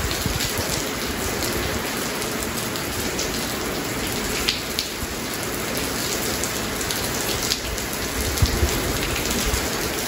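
Steady rain falling on a paved concrete yard: a dense, even hiss with many scattered sharper drop impacts.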